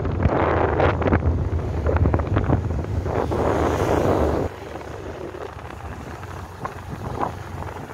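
Wind buffeting the microphone of a moving motorbike, over a steady low rumble of engine and road noise. The wind rush drops off abruptly about halfway through and stays quieter after.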